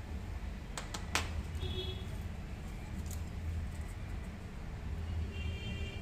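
A steady low hum, with two sharp small clicks about a second in from tweezers handling a phone's button flex cable on the bench. Short high chirping tones sound twice, briefly.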